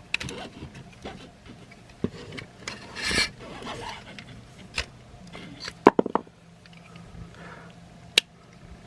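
Hard plastic parts of a Maketoys transforming robot figure rubbing and scraping as they are handled and folded, with several sharp clicks as pieces snap and peg into place, the loudest a close pair about six seconds in and one near the end.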